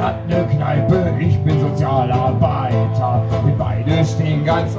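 Strummed acoustic guitar with a man singing over it, a live solo song.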